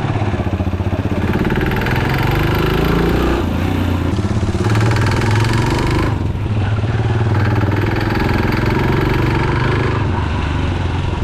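Yamaha YBR125G single-cylinder four-stroke engine running and being revved, making the abnormal knocking noise that is not normal for this bike. The owner's experienced acquaintance put it down to bad petrol, not the engine or carburettor.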